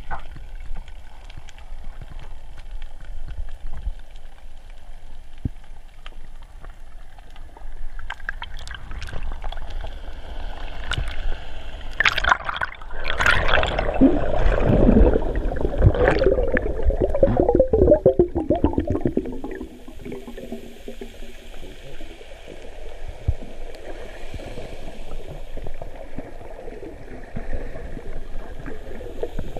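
Water gurgling and sloshing heard underwater through a GoPro's waterproof housing while snorkelling. A louder stretch of bubbling and splashing with crackling clicks starts about 12 seconds in and fades after about 19 seconds, as a snorkeller moves at the surface close by.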